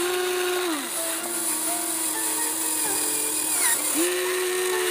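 Huina 1593 RC excavator's electric motors whining as the arm and bucket work at hard-packed soil. The whine drops in pitch and partly stops about a second in, then rises again as a motor starts up near the end.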